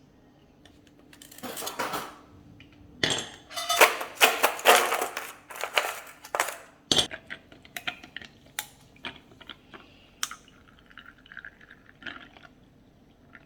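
Dishes and cups clinking with liquid being poured, a busy run of handling noise in the middle, then scattered light clinks and taps.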